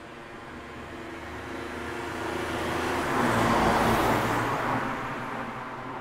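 A car passing by: engine hum and tyre noise swell steadily to a peak a little before four seconds in, then fade away.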